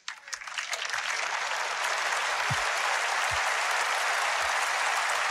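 Audience applauding: a few scattered claps quickly swell into steady, sustained applause within the first second.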